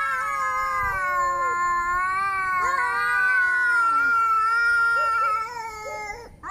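A cat's long, drawn-out angry yowl: one wavering call held for about six seconds that cuts off near the end.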